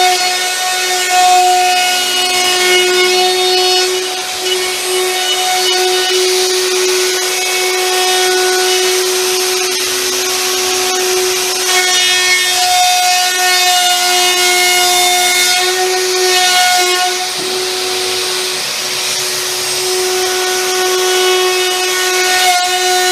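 Hitachi plunge router on a trammel arm cutting a curved arc through a board: the motor runs with a steady high whine, and the bit cutting the wood adds a hiss. It is cutting the radius of a jig used to true up an arched head.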